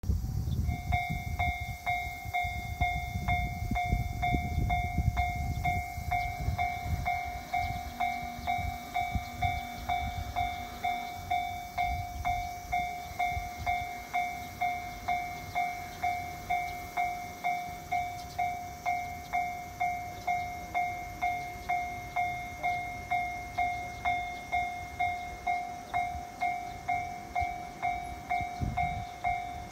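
Japanese railway level-crossing warning bell ringing, an electronic "kan-kan" tone struck about twice a second, signalling that a train is approaching.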